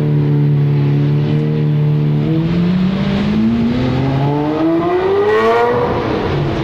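Lamborghini Murciélago LP640's V12 engine holding a steady note, then revving up in one long rising pull as the car accelerates hard away, the pitch climbing for about three seconds before dropping off near the end.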